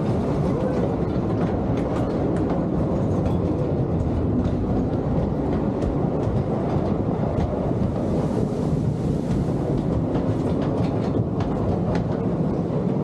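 Train of a wooden side-friction scenic railway roller coaster rolling along its track: a steady rumble with scattered clacks from the wheels and track.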